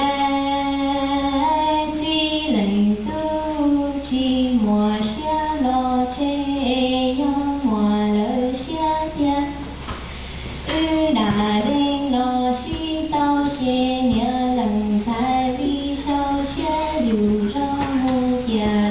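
A solo voice singing a traditional Hmong song, with no instrument heard: long held notes that slide and drop at the ends of phrases, and a short pause for breath about halfway through.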